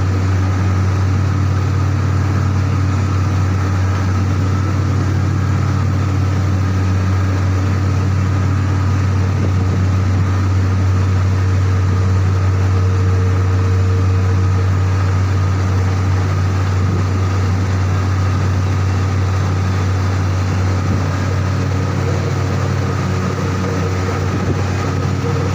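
Heavy machinery running steadily with a loud, constant low hum and a faint higher whine above it.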